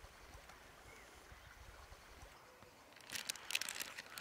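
A low steady rush of flowing river water, then, about three seconds in, a burst of sharp crinkling as a small clear plastic packet is handled in the hand.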